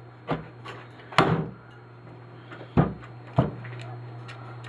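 Sharp knocks of hand tools striking a power strip being taken apart for scrap: a few separate hits, the loudest a little over a second in and two more near the three-second mark.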